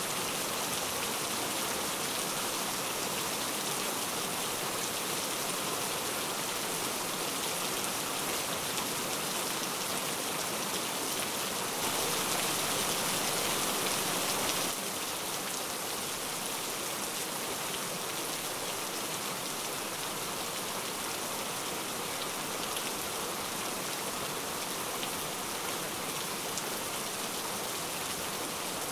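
Steady rain falling, an even hiss of drops. About twelve seconds in it turns louder for roughly three seconds, then drops back.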